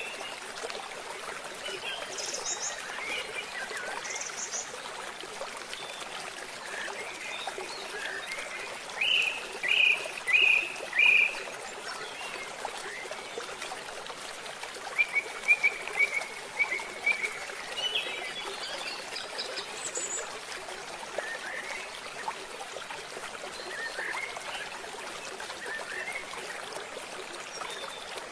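Wild birds calling in short, repeated chirps, including a burst of four loud notes and later a quick run of notes, over a steady rush of flowing stream water.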